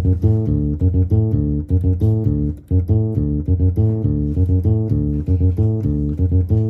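Electronic keyboard's finger-style electric bass voice ('Mellow Finger') playing a repeating bass line, note after note, with faint ticks of percussion behind it.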